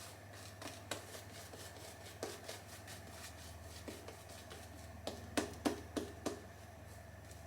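Razorock Hulk shaving brush working up lather: a faint, irregular run of soft brushing strokes and light clicks, with a quick cluster of four sharper ones a little past the middle.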